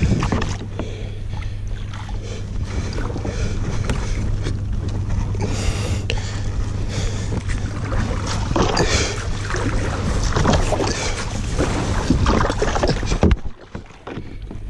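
Kayak paddle strokes splashing in the water, with water washing past the hull between strokes. The sound drops off briefly near the end.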